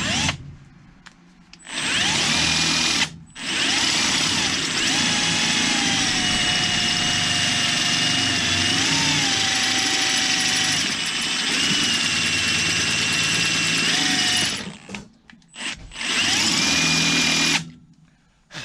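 Power drill running at high speed, boring out a hole in a Cadillac 429's cast-iron intake manifold so it can be tapped for a 1/8 pipe plug to stop an exhaust leak. The drill whines in a long run starting about two seconds in, with a brief stop soon after it starts, a few short stop-start bursts near the end, and a final run that cuts off just before the end.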